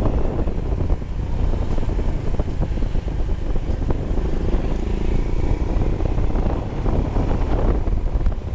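Royal Enfield Himalayan's single-cylinder engine running steadily under way on the road.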